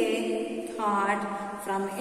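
A woman's voice reciting a poem in a slow, sing-song chant, holding long drawn-out notes that glide at their ends.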